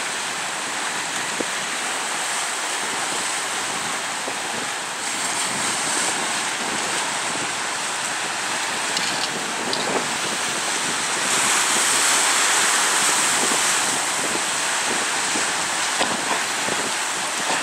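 Steady rush of wind and choppy water, with wind buffeting the microphone. It grows a little louder about two thirds of the way through.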